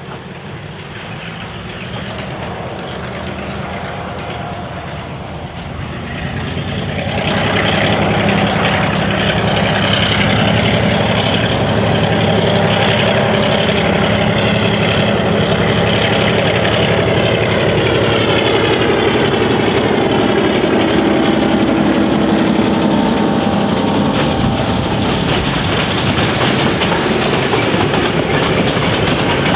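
Clyde/EMD G6B diesel-electric locomotive Y133 approaching and passing with a passenger train, its diesel engine growing louder over the first several seconds and then running loud and steady. As the carriages roll by, their wheels click rhythmically over the rail joints.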